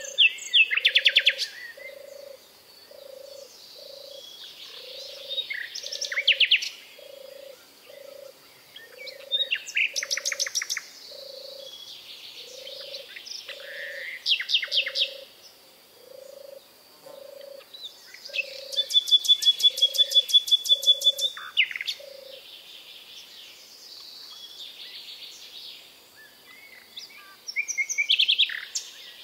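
Recorded songbird song: loud short phrases of fast trills every few seconds, with one longer rapid trill about two-thirds through. Under it a low call pulses regularly, about three times every two seconds, and stops about three-quarters of the way through.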